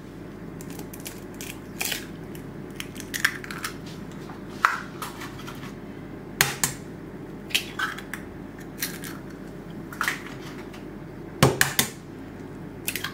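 Eggs tapped against the rim of a stainless steel pot, their shells cracking: sharp clicks every second or so, a quick cluster of several near the end, over a steady low hum.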